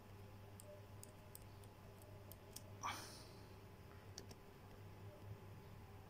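Faint clicks of a computer mouse or trackpad button as spreadsheet cells are selected, over a low steady hum, with one louder brief noise about three seconds in.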